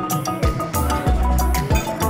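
Background music with a steady drum beat, about two beats a second, under sustained melodic notes.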